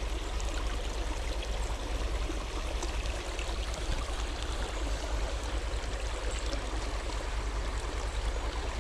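Small stream flowing and trickling steadily, a continuous rush of running water.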